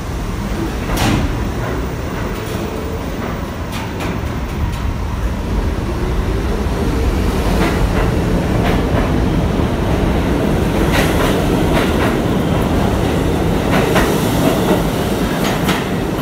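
R68A subway train pulling out of the station past the platform: a steady low rumble that grows louder as it picks up speed, with sharp wheel clacks over the rail joints every few seconds.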